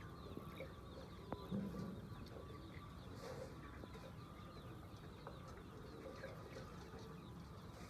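Chickens clucking faintly in a flock, with a couple of sharp clicks.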